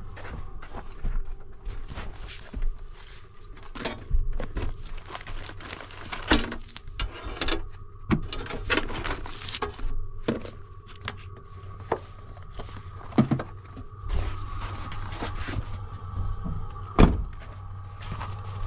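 Rummaging in a pickup truck's cab: rustling and scattered knocks as things on the floor are moved and leather work gloves are picked up, over a low steady hum, with one louder thunk near the end.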